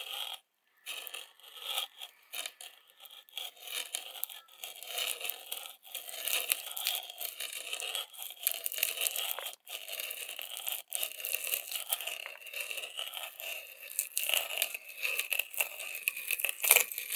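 Freshly sharpened adjustable spade bit, turned by a hand brace, boring a 1 1/4-inch hole through oriented strand board. The cutter scrapes and tears off shavings steadily, with a few short breaks. This is the sound of a sharp bit cutting cleanly.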